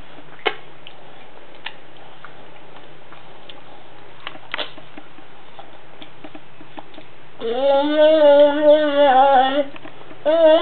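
Mostly a quiet stretch with a few faint clicks. About three-quarters of the way through, a high, wavering, humming 'mmm' of yummy eating noises is held for about two seconds, and it starts again just at the end.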